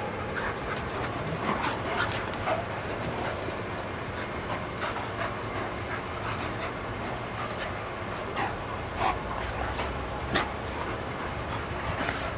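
A German shepherd-type dog and a black puppy play-fighting, with short, scattered dog vocal sounds and mouthing noises, the sharpest a few times through.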